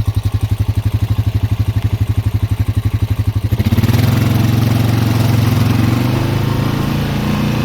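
Four-wheeler (ATV) engine idling with a fast, even chugging, then about three and a half seconds in the throttle opens and it runs louder and steadier.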